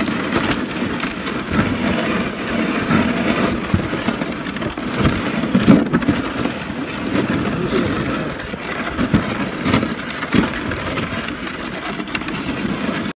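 Dog sled gliding over snow behind a husky team: the runners scraping and hissing, with constant rattling and knocking from the sled frame and handlebar, and a few harder knocks about six and ten seconds in.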